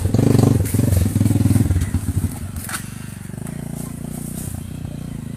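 Rusi motorcycle engine working under a load of logs on a dirt trail. It is loud for the first two seconds, then eases to a quieter, steady run.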